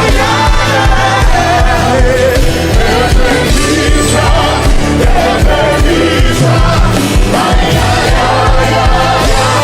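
Live gospel worship music: a band with a steady beat and voices singing over it.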